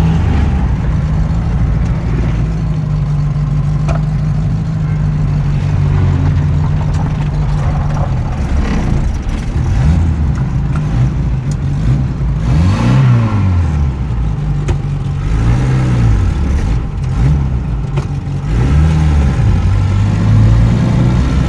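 Suzuki Carry 1.0-litre four-cylinder engine, swapped into a Mercedes sedan, running at a steady speed, then rising and falling in revs several times in the second half.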